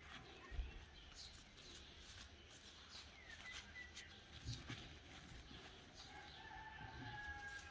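Faint rustling and soft knocks of fresh grape leaves being folded and pressed by hand into a glass jar, with faint bird calls in the background.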